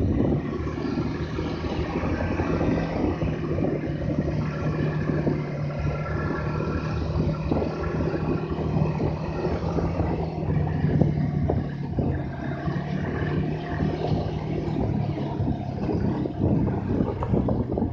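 Snowmobile engine running at a steady speed, its low hum holding an even pitch throughout.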